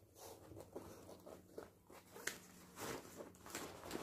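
A finished zippered bag of striped fabric and faux leather being handled and shaped by hand: faint irregular rustling and crinkling of the material with a few light clicks and taps.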